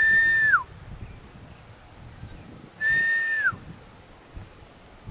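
Two human whistles, each a held high note that falls off in pitch at the end, about three seconds apart: a hunter whistling to get bedded fallow deer to stand up.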